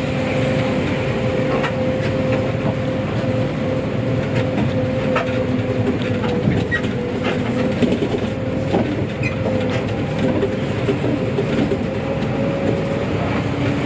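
Hino RG diesel bus engine running, heard from inside the cabin of a non-AC economy bus: a steady drone with a held whine over it and scattered knocks and rattles.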